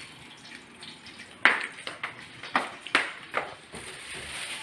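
A run of six sharp knocks, about two a second, the first the loudest, each dying away quickly.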